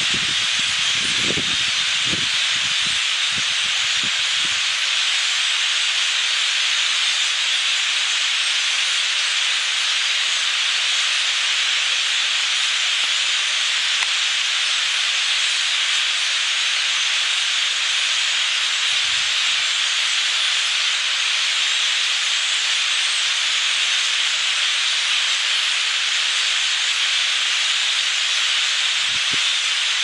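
A massive flock of common grackles calling all at once, thousands of overlapping chattering calls that merge into a dense, steady, hiss-like din.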